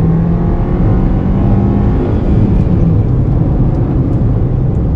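Engine of a small 1100cc petrol car heard from inside the cabin while driving, a steady hum over low road and tyre noise. The tone is clear for about two seconds, then less distinct. It sounds really good, like a sports car.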